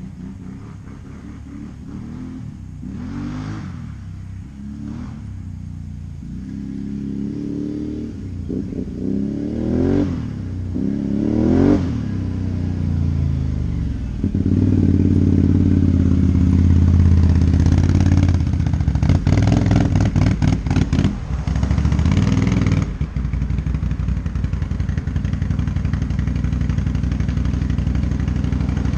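Can-Am Renegade XMR 570 ATV's V-twin engine running through a Yoshimura slip-on muffler, revved up in several rising bursts, then held high with a rapid stutter at the top before dropping back to a steadier, lower run about three-quarters of the way in.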